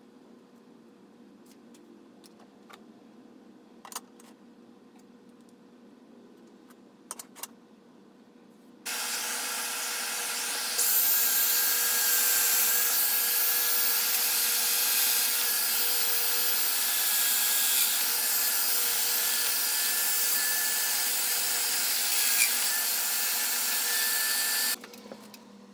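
A loose-tenon joiner (Domino type) with a dust-extraction hose attached runs steadily for about sixteen seconds, cutting mortises in MDF panels. It gets louder about two seconds after starting and cuts off suddenly near the end. Before it starts there are only a few light handling clicks.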